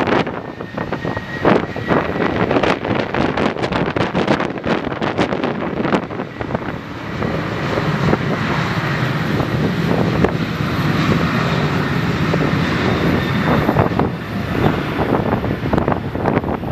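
Boeing 737-800's CFM56 jet engines running up loud and steady on the takeoff roll, building up about seven seconds in and easing off near the end. Strong gusty wind buffets the microphone throughout.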